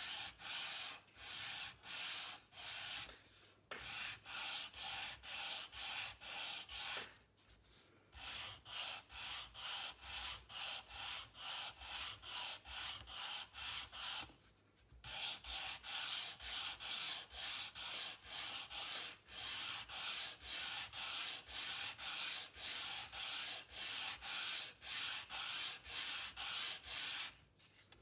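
Hand sanding: a small sanding block rubbed back and forth along a thin wooden dowel, about two to three strokes a second, with a few brief pauses. It is flattening the top edge of a model wheel spoke.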